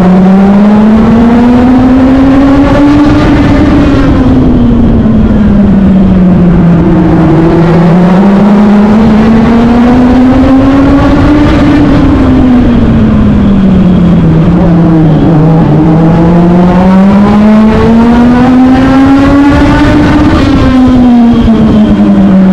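Legend race car's Yamaha four-cylinder motorcycle engine at full throttle along the straights and easing off into the turns, its pitch rising and falling three times. The engine is heard from the car's own roof, with a rough rushing noise underneath.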